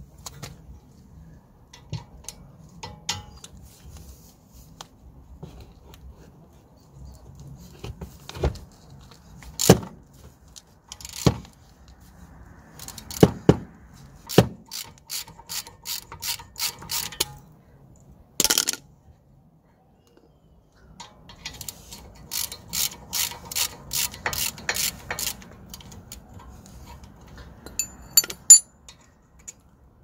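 Socket ratchet clicking in two runs of evenly spaced clicks, about three a second, as a 13 mm brake caliper bolt is wound out. Scattered sharp knocks and clinks of steel tools on the caliper come between the runs.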